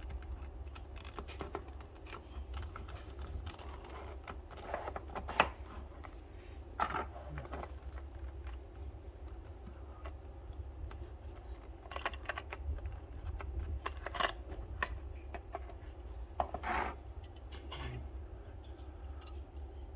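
Hands working at a diecast model car's plastic packaging: irregular small clicks, scrapes and rustles, with a sharp click about five seconds in. A low steady hum runs underneath.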